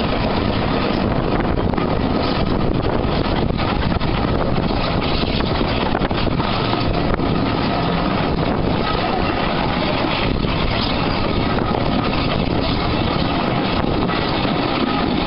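Bagnall 0-4-0 saddle-tank steam locomotive working a train, heard from the carriage right behind it: a steady, loud mix of exhaust and running noise, with wind buffeting the microphone.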